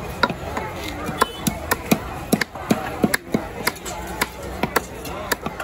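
Heavy fish-cutting knife chopping through a giant trevally's flesh and backbone on a wooden log chopping block: a quick, uneven run of sharp strokes, about three or four a second.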